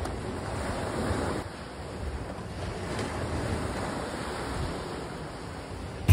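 Sea waves breaking and washing up on a sandy beach, with wind buffeting the microphone.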